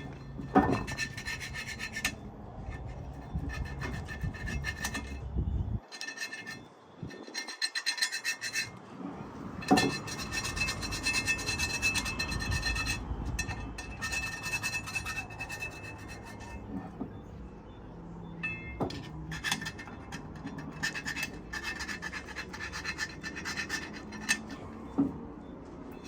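Hand scraping and rubbing on metal parts of a semi-truck wheel hub, in irregular spells with a few sharp knocks and a short lull partway through.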